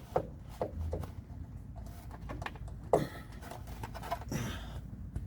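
Irregular light knocks, clicks and rubbing as a bundle of trailer wiring is tugged through a hole in a van's body and snags. The sharpest knock comes about three seconds in.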